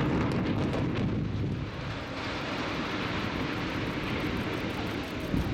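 Low, steady rumble of a concrete high-rise tower block collapsing after explosive demolition, with a few faint cracks in the first second.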